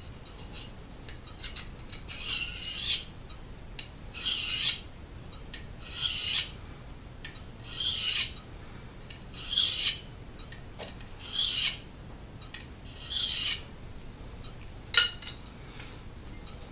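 A Nagura stone rubbed over a spit-wetted DC4 diamond/ceramic pocket sharpening stone in seven slow rasping strokes, about one every two seconds, working up a slurry that fills the stone's pores for a finer polish. A short click near the end.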